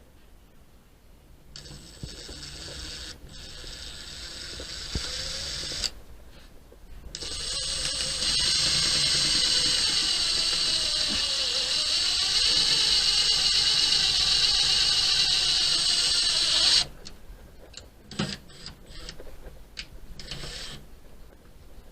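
Small power tool running in two stretches, a shorter one of about four seconds and then a long one of about ten seconds, followed by a few clicks and knocks.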